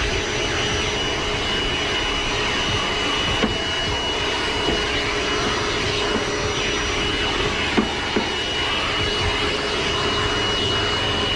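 Vacuum cleaner running steadily with a high whine, sucking dust out of a furnace cabinet, with a few light knocks about three and eight seconds in.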